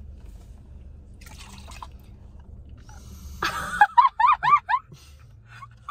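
Laughter breaking out about three and a half seconds in, starting with a sudden loud burst and running into a quick string of short ha-ha laughs, over a low steady hum.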